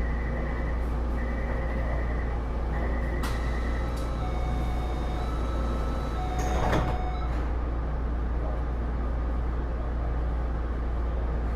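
Inside a Taipei Metro C301 car standing at a station: a rapid pulsed warning beep sounds for the first couple of seconds. The sliding doors then close with a thump about seven seconds in, over a steady low hum.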